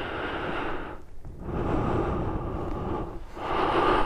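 Wind buffeting the microphone, a rumbling noise that rises and falls in gusts.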